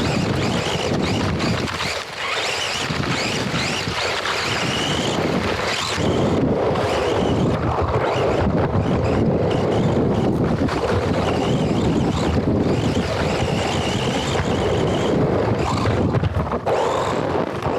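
Wind rushing on the microphone of an action camera riding on a racing RC car, with the car's motor whining up and down in pitch as it speeds and slows on the dirt track.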